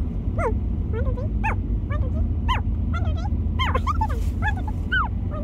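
High-pitched, sped-up chipmunk-effect voices chattering in short, irregular squeaks that rise and fall, over the steady low rumble of the car.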